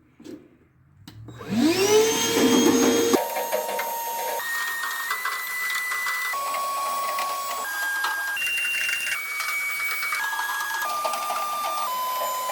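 Small handheld vacuum motor starting up with a rising whine about a second in, then running steadily. The whine jumps abruptly to a new pitch every second or so.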